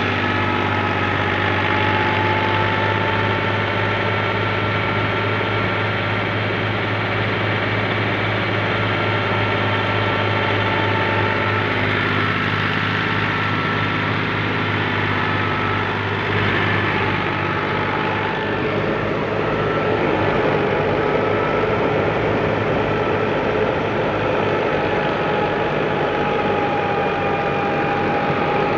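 Ghazi 65 hp tractor's diesel engine running steadily under load while driving a wheat thresher, with steady whining tones from the machinery above the engine note.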